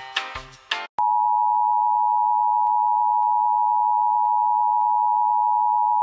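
Instrumental music cuts off about a second in, and the Emergency Alert System attention signal starts: a loud, steady two-tone alarm (853 and 960 Hz sounded together) that announces a broadcast alert, here a required monthly test.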